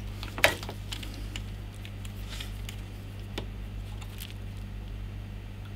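Small clicks and taps of hand tools being handled on a workbench, the loudest a sharp click about half a second in, with a few faint ticks after it, over a steady low hum.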